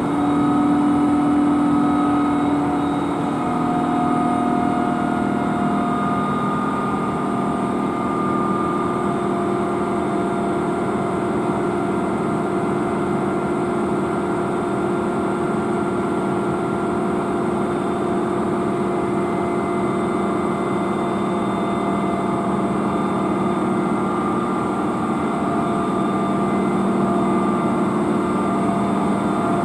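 SNCF BB 7200 electric locomotive standing at the head of its train with its equipment whining: a whine of several tones that rises in pitch right at the start, then holds steady over a low rumble.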